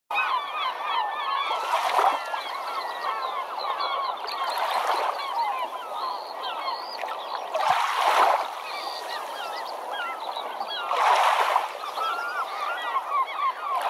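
A crowd of birds calling over one another without a break. A wash of noise, like surf, swells about every three seconds.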